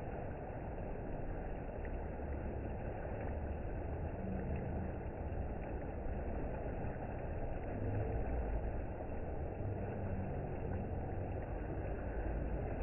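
Steady rush of water streaming out of a water slide's tube and splashing into the pool.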